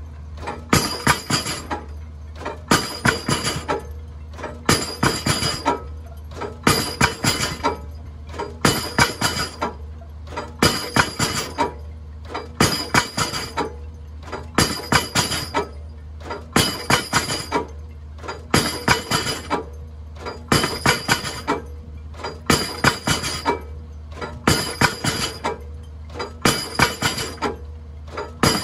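Pile-driving hammer striking a precast reinforced concrete pile about every two seconds, each blow a cluster of clanking, ringing metal impacts, as the pile is driven down. Under the blows runs the steady drone of the piling rig's engine.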